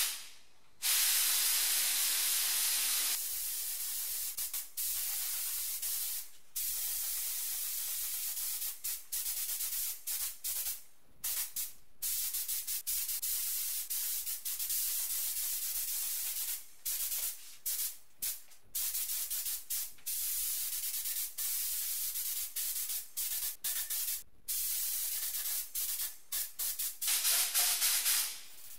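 Gravity-feed paint spray gun run on compressed air, spraying onto small parts. It makes a steady high air hiss that cuts off and starts again abruptly many times as the trigger is pulled for short passes.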